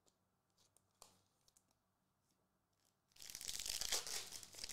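A foil trading-card pack being torn open by hand: a crinkly rip that starts about three seconds in and lasts about a second and a half. A few faint ticks come before it.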